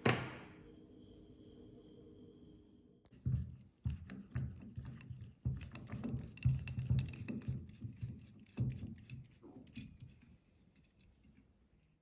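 A sharp knock with a few steady tones ringing on after it, cut off about three seconds in. Then irregular knocks and clicks as a screwdriver works the string tree screw on a Stratocaster headstock, dying away near the end.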